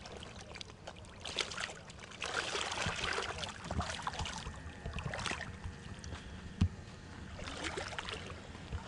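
Shallow lake water sloshing and splashing around hands and a wet weigh sling as a large fish is released, with irregular louder splashes in the first half and a single short knock later on.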